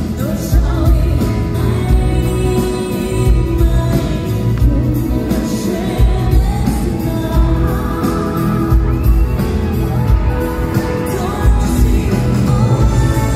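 Live band music with a woman singing a solo vocal line over electric guitar, keyboards and heavy bass, picked up by a phone in the audience.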